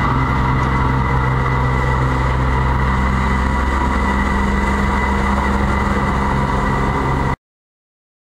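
Stationary locomotive running: a steady low hum with a steady high whine over it, cut off abruptly about seven seconds in.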